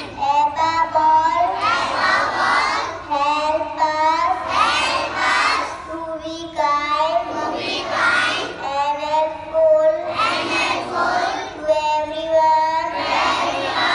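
A group of young children chanting a prayer in unison, in short phrases with held notes and brief pauses between them.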